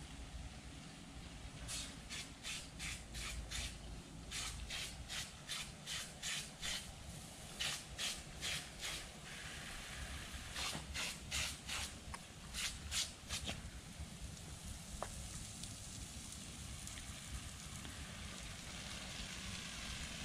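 Broken lawn sprinkler spitting water in runs of rapid pulses, about three a second, over a steady hiss of spray. The pulses stop about two-thirds of the way in, and a steady hiss remains.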